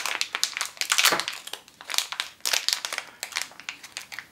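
Crinkling and rustling of blind-box pin packaging being opened by hand, an irregular run of small crackles.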